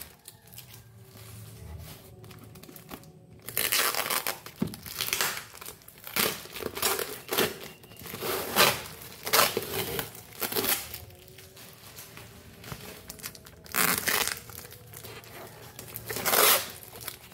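Plastic shipping packaging being torn and unwrapped by hand: irregular bursts of crinkling and tearing that begin a few seconds in.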